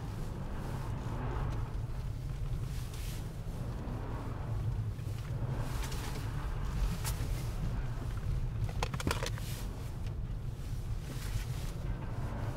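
Car engine and tyre noise heard from inside the cabin while drifting on a snow-covered track: a steady low drone, with a quick run of clicks or rattles about nine seconds in.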